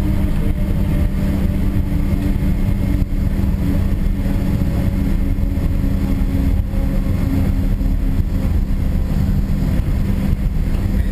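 Steady cabin noise in a Boeing 777-200ER beside the wing as it rolls on the ground after landing: a low rumble with the hum of its GE90 engines at low power. One engine tone sinks slightly in pitch in the first second.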